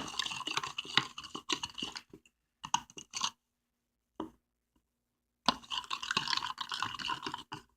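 A spoon stirring borax into a cup of water, scraping and clinking against the cup while the borax is not yet dissolved. It comes in spells with short silent gaps between.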